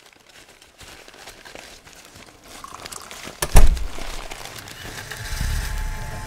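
Faint crinkling and rustling, then a sudden deep thump about three and a half seconds in, followed by a low rumble and hiss that swells toward the end.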